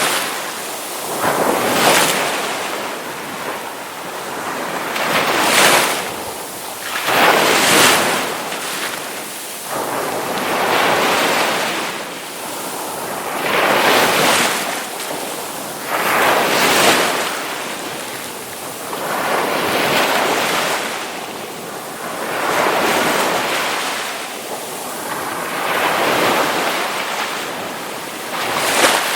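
Ocean waves breaking on the shore in a steady series, each crash swelling up and washing back every two to three seconds.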